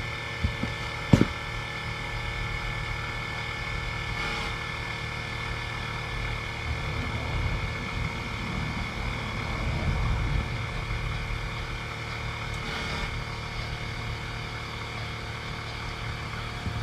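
A BMW 535 GT's newly fitted air-suspension compressor is running steadily to pump up the new air springs and raise the car. There is a sharp click about a second in.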